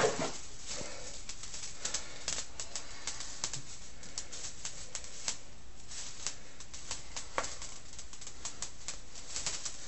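Plastic cling wrap being pulled off its roll and wound around a leg, crackling with many small irregular clicks.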